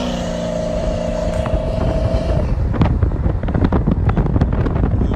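Car engine and road noise as a car drives down a street, with a steady drone for the first couple of seconds, then rumbling and irregular crackles of wind buffeting the microphone.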